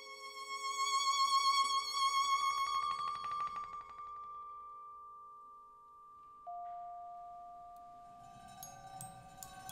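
Contemporary music for violin and percussion: long held high notes with vibrato over a fast pulsing texture. About six and a half seconds in, a new ringing note starts suddenly and fades slowly, with a few light clicks near the end.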